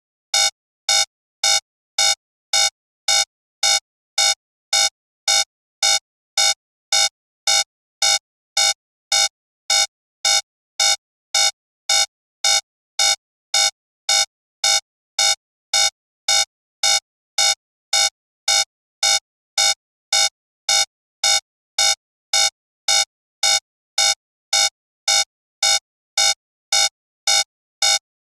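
Digital alarm clock alarm going off: short, identical electronic beeps repeating evenly at about two a second, signalling that the 15-minute countdown has ended.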